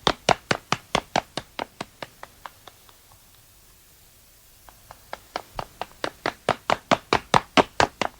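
Dragon Ball Z anime running sound effect: quick, evenly spaced footsteps, about four or five a second. The steps fade away to quiet about three seconds in, then a run fades back in from about five seconds in and is loud near the end.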